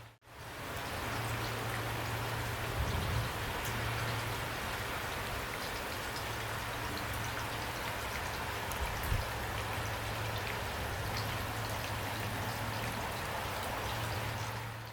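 Heavy rain falling steadily, a dense patter of drops with a few low thuds about 3 and 9 seconds in. The sound drops out for a split second and fades back in just after the start and again at the end, like a seam where the recording loops.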